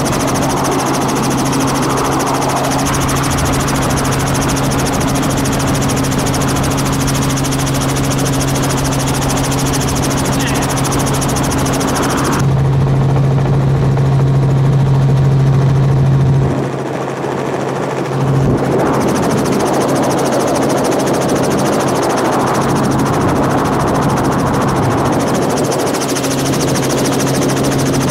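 Helicopter in flight, heard from inside the cabin: a steady low hum under a wide hiss. About twelve seconds in, the hiss drops away and the sound turns muffled for about six seconds, then returns.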